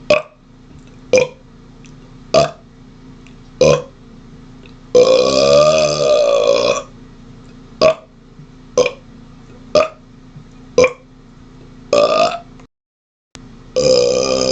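A man burping on purpose: four short burps about a second apart, then one long burp of nearly two seconds that wavers in pitch. Then four more short burps, a slightly longer one, and another long burp that starts near the end.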